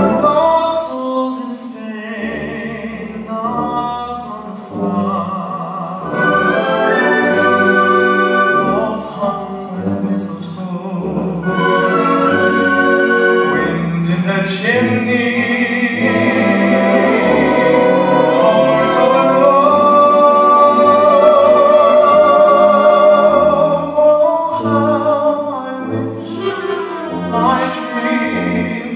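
A man singing a slow song with vibrato into a microphone, accompanied by a live orchestra with strings.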